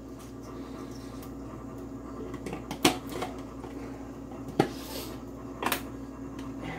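Kitchen counter handling sounds: three short, sharp knocks of containers and utensils being set down and picked up, about three, four and a half and six seconds in, over a steady low hum.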